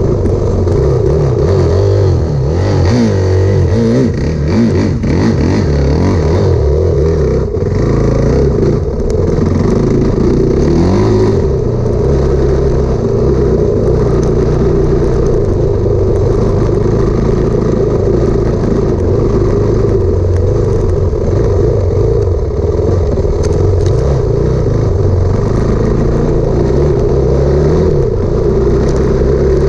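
Enduro motorcycle engine running while riding, rising and falling in pitch a few times with the throttle.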